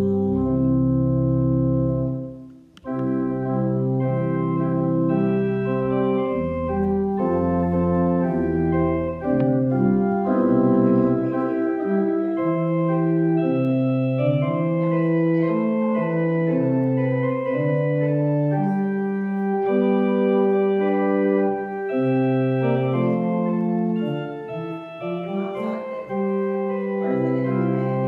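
Organ playing slow, sustained chords. There is a brief break about two and a half seconds in, then the playing resumes.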